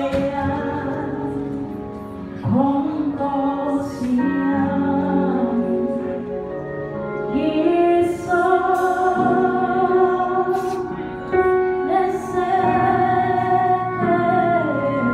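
A woman sings a slow gospel worship song into a microphone, holding long notes that slide up into pitch, over a soft electronic keyboard accompaniment.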